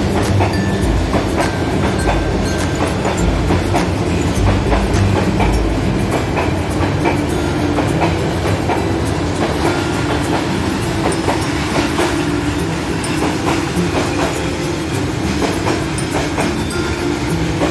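Freight train's open-top wagons rolling past, a steady rumble of wheels on rails with repeated sharp clacks from the wheels.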